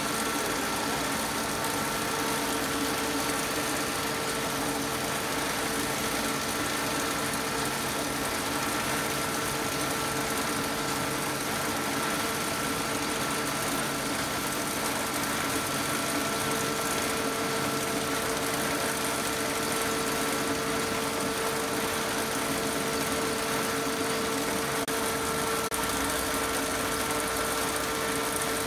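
Dazzini TCI 260 VH chain saw machine running steadily as its chain arm cuts into the rock, a constant whine over an even hiss.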